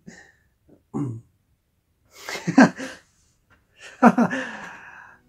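A man laughing in short breathy bursts: a brief one about a second in, a stronger one in the middle, and a last one near the end that trails off.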